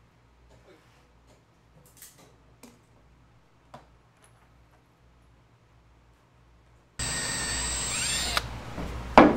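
Light scattered knocks of boards and tools being handled. About seven seconds in, a Makita 18V cordless drill starts abruptly and bores into a deck board, its high whine dipping in pitch as the bit bites. A sharp knock comes near the end and is the loudest sound.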